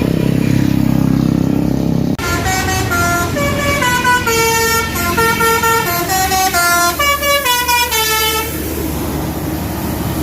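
A bus engine rumbles steadily. About two seconds in, a 'basuri' telolet horn plays a melody of short stepped notes, rising and falling, for about six seconds.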